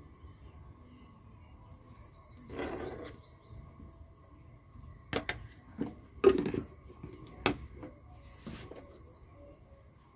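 A small bird sings a short, rapid trill of about ten high notes about two seconds in. Then come a few sharp knocks and clicks, the loudest about six seconds in.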